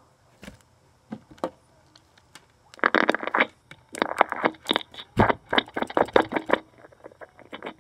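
Slime being stretched and squished by hand: a few scattered clicks, then, about three seconds in, a dense run of wet clicks and crackles lasting nearly four seconds.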